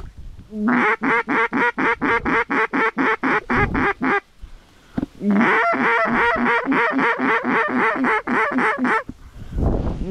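Fast run of duck quacks, about seven or eight a second, in two long strings with a pause of about a second between them.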